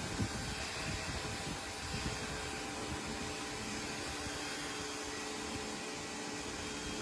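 Pressure washer spraying the car: a steady hiss of water under pressure over a constant machine hum.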